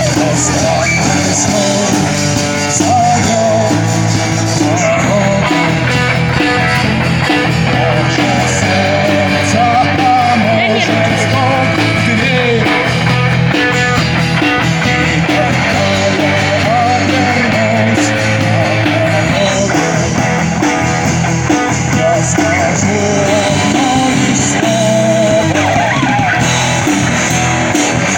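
Rock music played loud and without a break, led by guitars.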